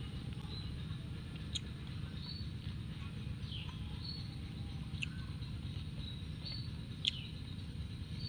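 Outdoor ambience: a steady low rumble with short, high bird chirps every second or two, and a few sharp clicks of chewing.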